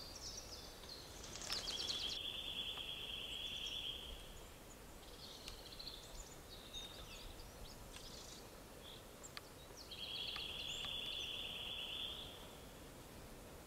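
Woodland songbirds singing: two long, even trills held at one pitch, about two and a half seconds each, one starting about a second and a half in and another about ten seconds in, with scattered short high chirps between.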